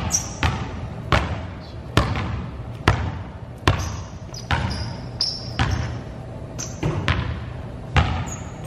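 Basketball bouncing on a gym floor, an uneven series of sharp bounces about one to two a second, each ringing with the echo of a large empty gym. Short high sneaker squeaks on the floor come in between the bounces, mostly in the second half.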